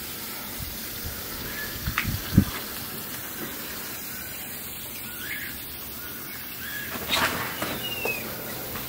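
Outdoor ambience: a few short bird chirps over a steady background hiss, with a falling chirp near the end. Two soft bumps about two seconds in and a brief rustle about seven seconds in.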